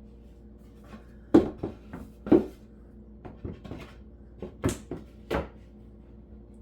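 Flat-pack cabinet panels knocking and clunking together as they are handled and fitted by hand, about seven sharp knocks, the two loudest in the first half.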